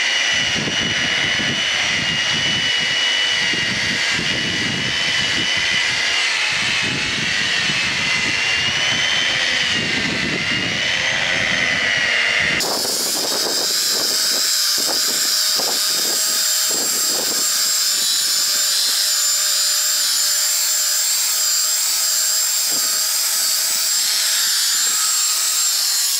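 Angle grinder running with an abrasive disc against a steel plate, cleaning up the surface of the steel: a loud, steady high whine over the rough scrape of the disc on the metal. About halfway the whine steps up to a higher pitch and the scraping gives way to a few short rubs.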